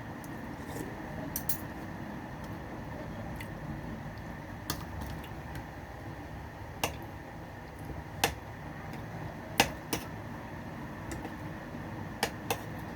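Cutlery clicking and clinking against a plate while eating, about nine sharp clicks scattered irregularly over a steady low background hum.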